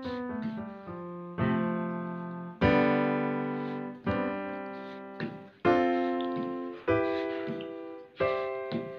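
Background piano music: a falling run of notes, then slow chords struck about every second and a half, each ringing out and fading.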